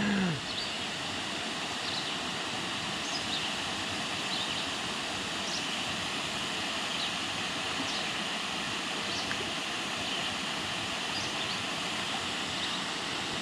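Steady rush of water pouring over a large spillway, an even roar with no breaks.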